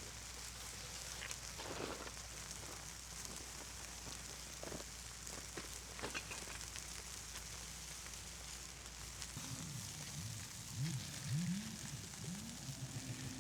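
Fire log burning with a steady hiss and scattered small crackles and pops. In the last few seconds a low voice murmurs or hums over it.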